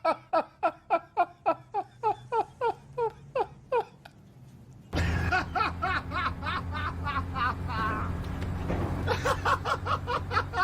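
A person laughing in a rapid run of short 'ha' sounds, about four to five a second, slowing and stopping about four seconds in. About a second later a steady low hum cuts in abruptly, with more bursts of laughter over it.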